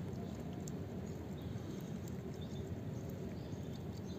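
Steady low background noise, with faint soft ticks of a Persian cat lapping at water dripping from a pipe.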